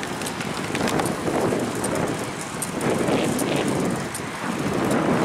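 Wind rushing over the microphone of a camera on a moving road bicycle, swelling and fading every second or so.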